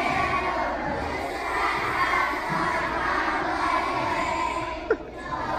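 Crowd hubbub of many children's voices shouting and cheering. A short sharp click comes near the end.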